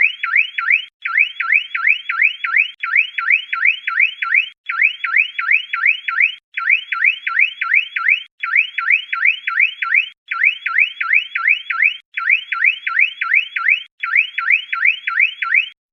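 Car alarm siren sounding: quick rising whoops, about five a second, repeated in bursts of about two seconds with brief pauses between them, cutting off just before the end.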